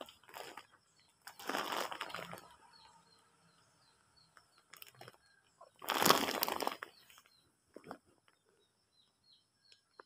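Small birds chirping repeatedly with short, high notes. Two louder bursts of rustling noise, each about a second long, come a little over a second in and about six seconds in.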